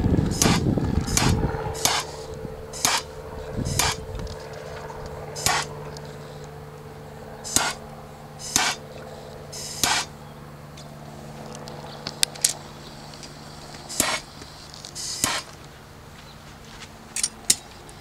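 Handheld gas torch burning while heat-shrink tubing is shrunk onto a crimped battery-cable terminal: a steady flame hum, loudest in the first couple of seconds, with about a dozen short hissing bursts spread through the rest.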